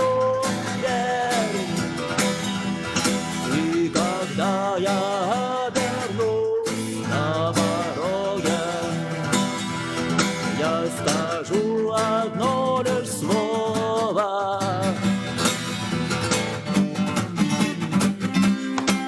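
Music: a guitar-backed rock song in an instrumental passage, with a melody line that bends and wavers in pitch over a steady strummed accompaniment.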